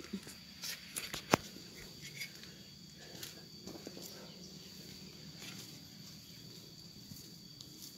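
Faint outdoor ambience: a steady high insect drone, with light footsteps and rustling and a few sharp clicks in the first second and a half, the loudest a little over a second in.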